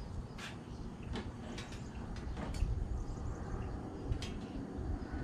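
A few scattered light clicks and knocks over a steady low rumble.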